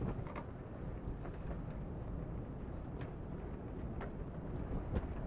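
Wind rumbling steadily, with a few faint ticks spaced about a second apart.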